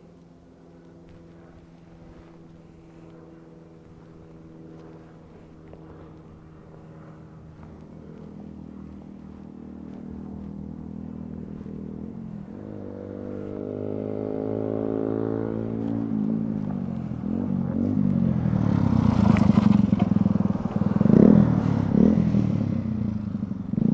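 Motorcycle engine running and drawing closer, growing steadily louder; its pitch rises about twelve seconds in as it revs up, and near the end it is loud and close.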